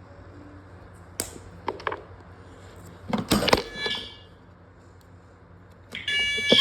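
A few sharp clicks and a clatter of hardware being handled, then about six seconds in a fire alarm sounder goes off abruptly with a loud, steady blare of several high pitches.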